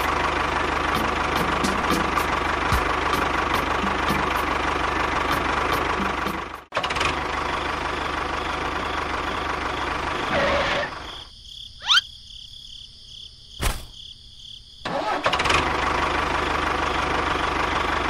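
A small tractor engine running steadily with a fast ticking. It cuts out for an instant about a third of the way in, then drops away for a few seconds past the middle, where a quick rising whistle and a click sound, before running again.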